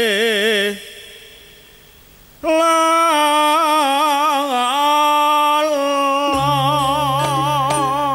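Campursari vocal: one singer holding slow, long notes with wide vibrato, mostly unaccompanied, with a short pause near the start. A low sustained instrument note comes in about six seconds in.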